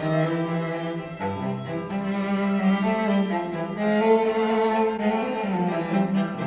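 A classical music track played back through a pair of IK Multimedia iLoud MTM studio monitors and recorded in the room, with held, pitched notes over a low bass line. Right at the end the playback switches to a pair of Yamaha HS8 monitors.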